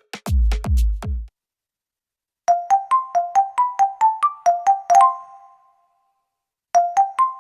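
Electronic keyboard imitating a sound effect. A few deep bass hits in the first second, then a pause, then a quick run of bright short notes at about five a second that ends on a held note. The same run starts again near the end.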